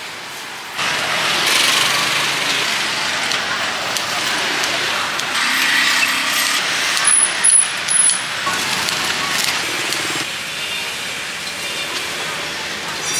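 Busy street ambience: a steady noise haze with traffic and faint voices, and three sharp clinks about seven to eight seconds in.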